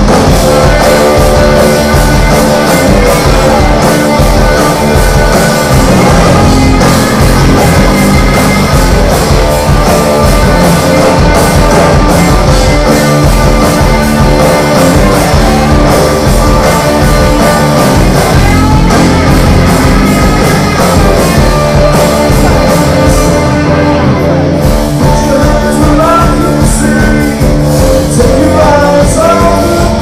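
Live rock band playing loud: distorted electric guitars, bass and drums, with vocals.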